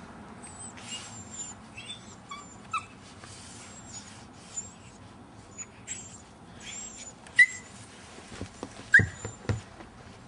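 Alaskan malamute puppies play fighting: scattered short whines and yips, with two louder, sharp yelps about seven and nine seconds in.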